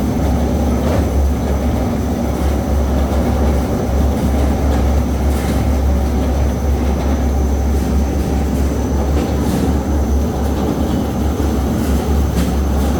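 Potato peeling and washing machine with nylon brush rollers running steadily: a loud, even mechanical rumble over a strong low hum.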